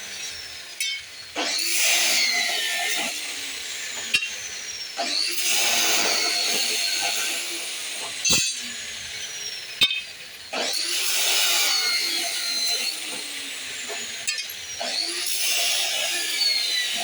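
Angle grinder cutting in four bursts of a few seconds each, with sharp clicks between the cuts.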